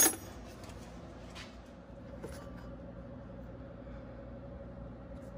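A single sharp metallic clink with a brief ring right at the start, from tools and hardware around an alternator being wired up. It is followed by faint scattered ticks and handling noises over a quiet steady hum.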